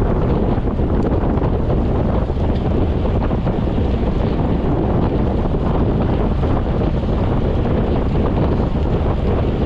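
Wind rushing over the camera microphone of a road bike riding at about 34 km/h: a steady, low rush with no breaks.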